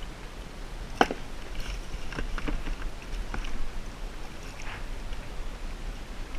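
Duck decoys and gear being gathered up by hand: one sharp click about a second in, then scattered lighter knocks and rustling.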